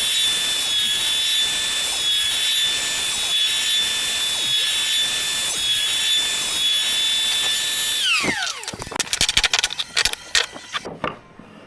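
Electric wood planer running at speed with a steady high whine while planing reclaimed fence timber, then switched off about eight seconds in and spinning down with a falling pitch. A scatter of sharp knocks and clatters follows.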